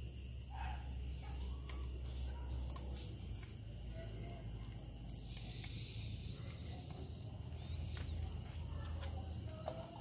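Quiet background: a steady low hum and a steady high-pitched whine, with a few faint small clicks of wires and lugs being handled at the electric motor's screw terminal block.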